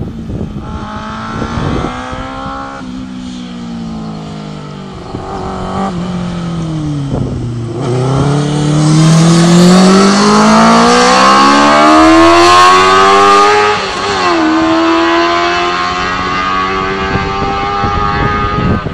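Formula 2 racing sidecar with a Honda CBR600 inline-four engine revving hard as it passes. The engine note dips low about eight seconds in, climbs to its loudest as the outfit goes by, drops sharply at an upshift and climbs again as it pulls away.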